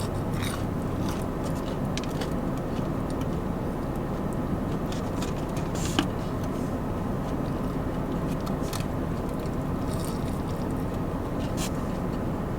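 Biting and chewing a breaded fried chicken finger close to the microphone: scattered crunches and small clicks, the sharpest a single click about six seconds in, over a steady low hum.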